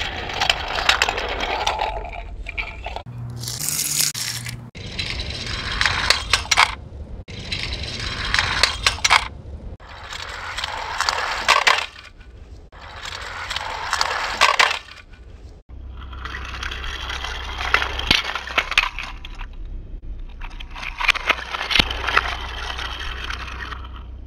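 Die-cast toy cars rolling down a plastic track, each run a rattling, clicking sound of about two seconds. The runs are repeated about seven times with short breaks between them, over a steady low rumble.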